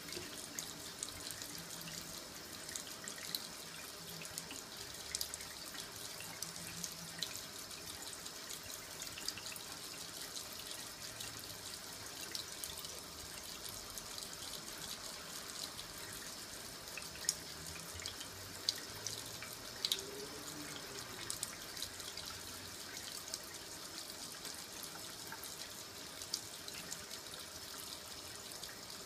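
Kitchen faucet running a thin stream into a sink: a steady splashing trickle peppered with small droplet ticks, with a few louder clicks a little past halfway.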